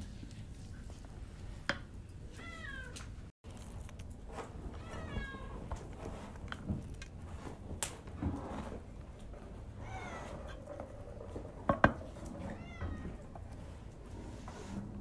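A cat meowing about four times, in short wavering calls. Underneath is the rustle of a wooden spoon stirring a dry, crumbly filling in an enamel bowl, with a few sharp knocks; the loudest comes about twelve seconds in.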